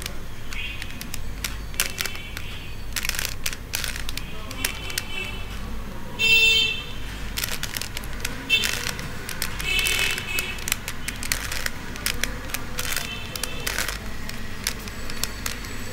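Plastic 3x3 Rubik's cube being turned by hand: a quick run of clicks and clacks as the layers snap round, with brief high-pitched tones now and then.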